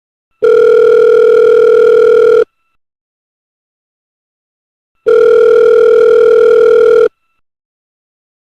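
Telephone ringing: two rings, each a steady electronic tone with a fast flutter lasting about two seconds, separated by a pause of nearly three seconds.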